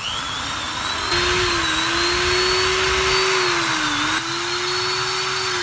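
Corded electric drill with a 6 mm chuck running free at high speed, a steady motor whine over a hiss. About a second in it runs up louder, and its pitch dips briefly near four seconds in before recovering.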